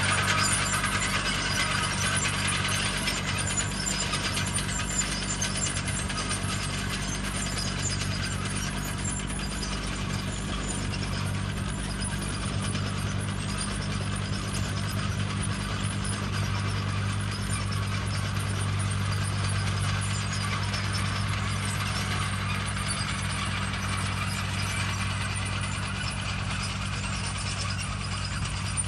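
Small crawler tractor's engine running steadily under load as it pulls a wheel hay rake through cut hay, with a steady low hum and a noisy mechanical clatter over it.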